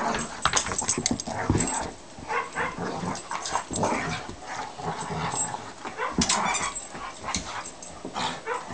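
A vizsla chewing and tearing at a shredded object: irregular chewing, ripping and clicking noises, mixed with small vocal noises from the dog.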